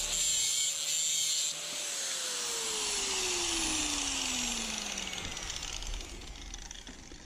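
Angle grinder's cut-off disc grinding metal, the cutting noise stopping about a second and a half in. The motor then winds down, its whine falling steadily in pitch over the next few seconds until it fades out.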